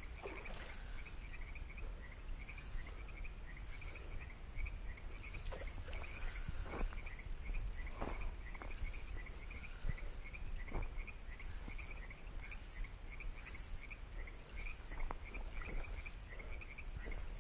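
Night chorus of calling frogs and insects: a steady run of short chirps, about three a second, with higher buzzing trills coming and going about once a second. A few faint knocks of handling sound through it.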